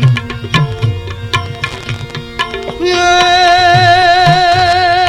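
Instrumental interlude of live Indian devotional folk music: hand drums beat a steady rhythm. About three seconds in, a loud held melody line with a slight waver joins and the music swells.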